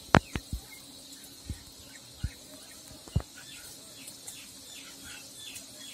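Breaded chicken pieces deep-frying in hot oil in a clay pot: a faint sizzle with a few sharp pops of spattering oil, the loudest just after the start and another about three seconds in.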